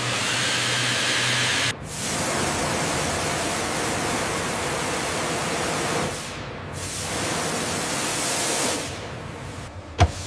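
Steady, even hissing noise, broken by abrupt cuts about two, six and nine seconds in.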